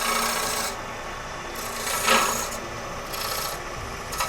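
Turning gouge cutting into a spinning lignum vitae bowl on a wood lathe, in short hissing passes about a second apart, the strongest about two seconds in, over the faint steady hum of the lathe.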